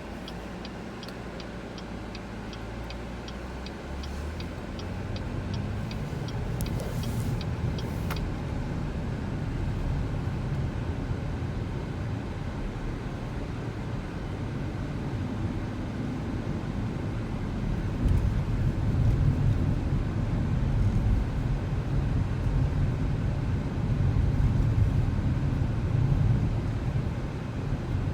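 Car driving, heard from inside: a turn signal clicks about twice a second for the first eight seconds or so, over steady engine and road noise that grows louder as the car picks up speed, most of all from about two-thirds of the way in.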